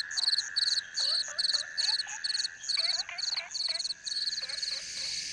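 Night forest chorus of insects and frogs: high insect chirps repeating evenly about three times a second over a steady high whine, with frogs giving clusters of short rising calls.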